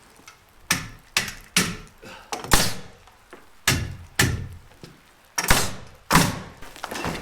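Nails being driven into 2x4 wood framing: about eight sharp strikes at uneven spacing.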